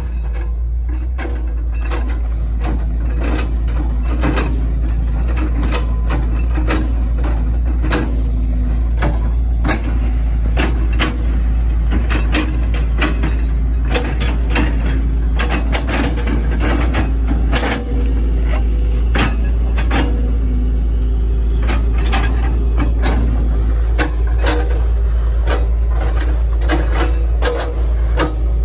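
Hitachi ZX110 MF excavator's diesel engine running steadily under load, with many irregular knocks and clacks from the machine working.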